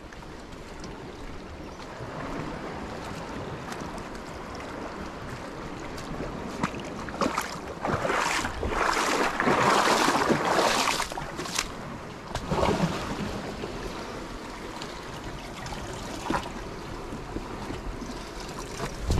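Sea water washing and lapping against shore rocks, with scuffing footsteps and gear and clothing scraping on rock and rubbing close to the microphone. The scraping is loudest in the middle, and a few sharp knocks stand out.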